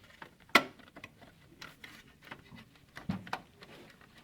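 Scattered small plastic clicks and rattles as a desktop computer's case fan is pressed at its retaining clips and wiggled to work it loose, with one sharper click about half a second in and a dull knock about three seconds in.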